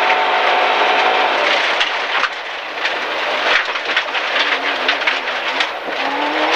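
Onboard a gravel rally car, the MG ZR's 1.4-litre four-cylinder engine holds steady high revs, then drops back. Stones and gravel rattle and ping against the underside for several seconds. Near the end the engine pulls again at lower revs, its note rising.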